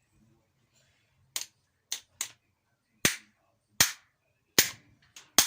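Hammer blows knocking a worn bearing out of a Land Rover Freelander propshaft centre support bearing: about eight sharp strikes starting about a second and a half in, coming faster towards the end.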